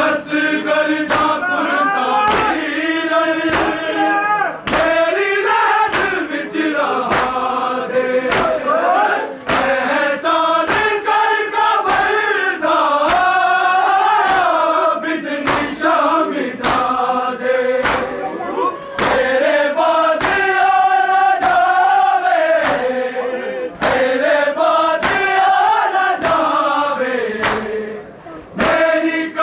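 Men chanting a mourning lament (noha) together. Sharp slaps of chest-beating (matam) keep a steady beat under the singing.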